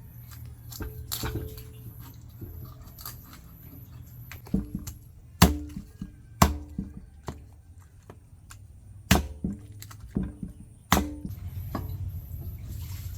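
Chopping on a wooden cutting board: about four loud, sharp chops at irregular intervals, with fainter knocks and clinks in between.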